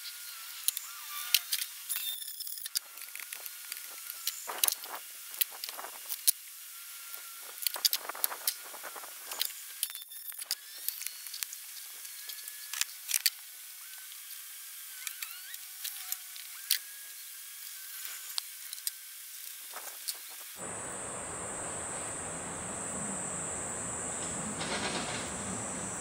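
Scattered clicks, knocks and rattles of tools and materials being handled on a truck bed, over a faint high hiss. About twenty seconds in the sound cuts to a steady shrill of insects with a strong high band.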